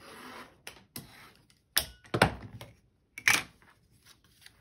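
Rotary cutter drawn along an acrylic ruler on a cutting mat, trimming the fabric seam allowance: a short rasping stroke, then a second one. Several sharp clicks and knocks follow as the cutter and ruler are handled and set down on the mat.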